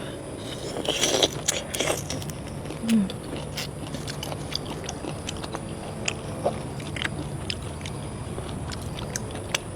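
A person chewing and eating raw marinated shrimp, with many scattered wet clicks that come thickest about one to two seconds in, and a short low murmur about three seconds in.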